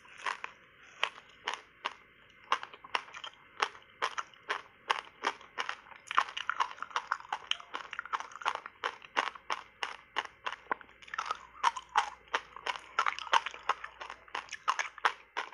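Crisp, rapid crunching of teeth biting and chewing through a block of reshaped ice coated thick with matcha powder, several sharp crunches a second, coming thicker and faster in the middle stretch.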